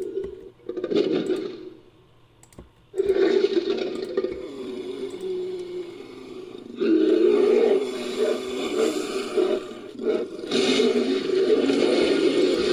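Invented pterosaur creature calls made by layering monster sound effects: one short call about a second in, then after a brief pause a run of long, harsh calls.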